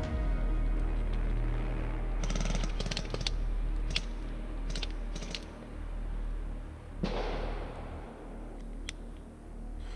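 Airsoft guns firing: a rapid full-auto burst of snapping shots about two seconds in, then a few single shots. A brief hissing rush comes about seven seconds in, over a steady low rumble of wind on the microphone.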